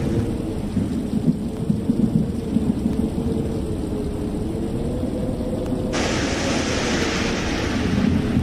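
Thunderstorm sound effect: a continuous low rumble of thunder under a slowly wavering hum. A rain-like hiss comes in abruptly about six seconds in.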